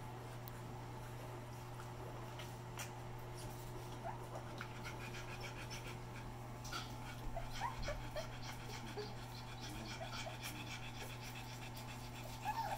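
Australian Shepherd mother dog panting steadily while nursing her litter, with small squeaks from the suckling puppies now and then from a few seconds in.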